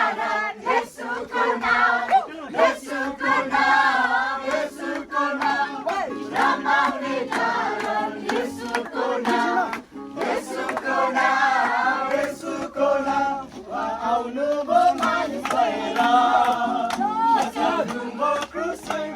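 A group of men and women singing a Nepali Christian worship song together.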